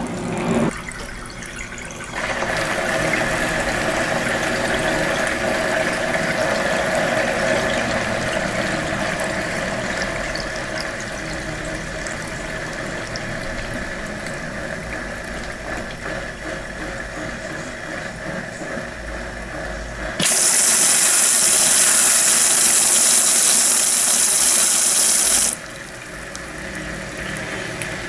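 Brastemp Eggo mini washer draining its wash water: a steady pump hum with running water that slowly fades. About 20 seconds in comes a loud hiss of water spraying for about five seconds. This is the spray jets that rinse soap residue off the clothes before the tub refills for the rinse.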